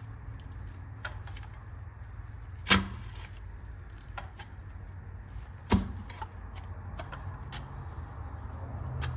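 Post hole digger striking hard, compacted soil: two sharp strikes about three seconds apart, with lighter clicks and scrapes between, over a steady low hum.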